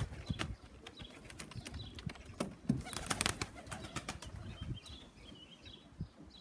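Pigeons' wings flapping and clapping as a flock comes down to land on a loft roof, in short sharp claps with a busy burst about three seconds in. Faint high bird chirps sound between the claps.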